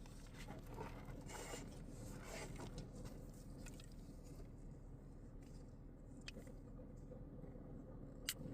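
Faint scraping and rustling of something being handled over a steady low hum, with a couple of sharp clicks near the end.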